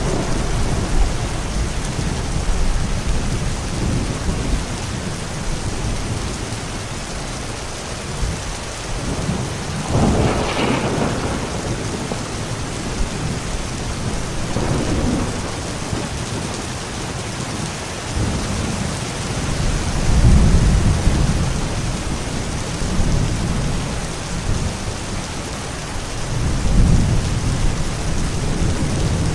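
Steady rain falling through a thunderstorm, with rolling thunder rumbling up and dying away several times: a sharper crack about ten seconds in, then deeper low rumbles near the middle and toward the end.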